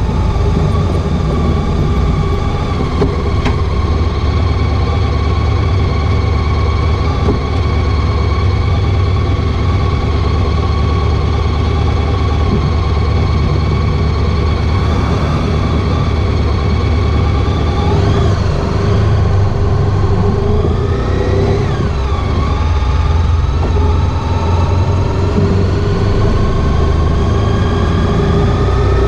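Honda ST1300 Pan European's V4 engine running steadily while riding, over a heavy low rumble. Its pitch sags slightly, then rises over the last few seconds as the bike accelerates.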